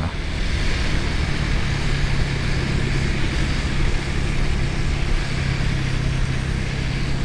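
Motorcycle engine running at a steady cruising speed, heard through wind and road noise on a helmet-mounted microphone; the engine note settles into a steady hum about a second and a half in.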